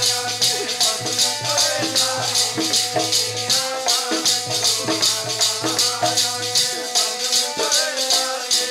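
Kirtan accompaniment between sung lines: harmonium holding notes over a steady shaking, jingling hand percussion at about five strokes a second. A low held note drops out about two-thirds of the way through.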